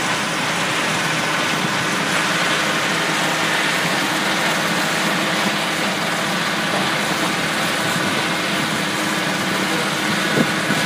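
Sandvik QI441 mobile impact crusher and screening plant running: a steady, dense mechanical din of engine, crushing and stone pouring off the conveyors, with a short knock near the end.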